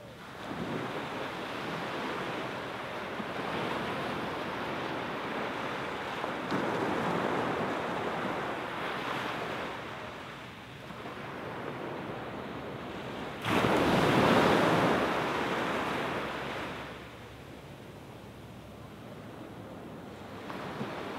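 Small waves breaking and washing up a sand beach, coming in swells that rise and ebb. The loudest wave breaks suddenly about two thirds of the way through and washes out over a few seconds.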